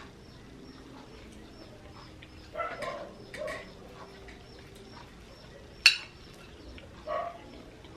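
Birds chirping faintly and steadily in the background, broken by three short, louder calls and one sharp clink about six seconds in.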